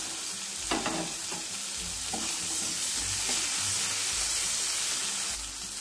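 Chopped onion and tomato frying in oil in a nonstick pan, sizzling steadily, while a spatula stirs and scrapes through it to mix in the ginger paste.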